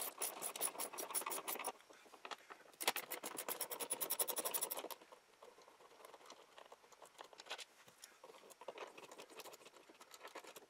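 Socket ratchet clicking rapidly as a 10 mm bolt in the truck's interior trim is turned out, in two runs of about ten clicks a second, each lasting a second or two. Faint scraping and handling of plastic trim follows.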